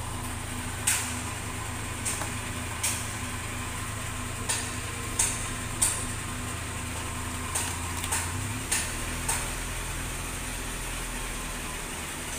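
About a dozen sharp, irregular clicks and taps of parts being handled inside a Texa A/C service machine while its filter dryer is changed, over a steady low hum that drops a little in pitch about two-thirds of the way through.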